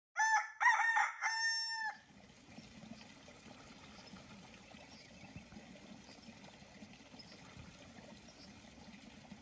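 A rooster crows once, a few short broken notes ending in a long held note, for about two seconds. After that only a faint, steady outdoor background noise remains.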